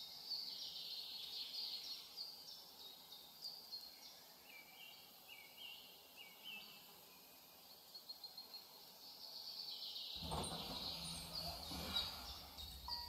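Faint birdsong: short chirping phrases repeated again and again. About ten seconds in, a soft even rushing noise comes in under it.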